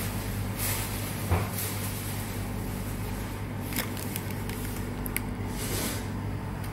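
Steady low hum of a fast-food restaurant's indoor room, with a few faint clicks and short rustles and one brief thump about a second and a half in.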